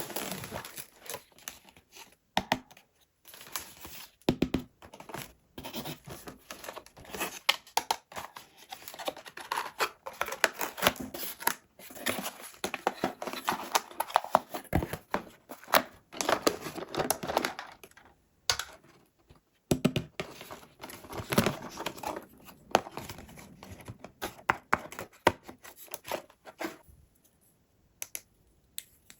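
Toy packaging being unboxed by hand: cardboard and plastic tearing and crinkling, with many sharp clicks and handling knocks. Near the end it drops away to a few scattered clicks.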